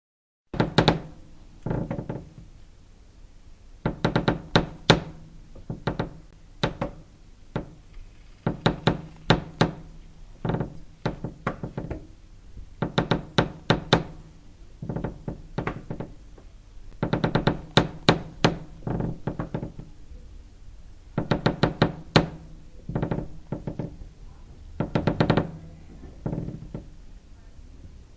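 Creaking wood: repeated creaks of stressed timber, each a quick run of clicks with a low buzzing pitch, coming in separate groups every second or two.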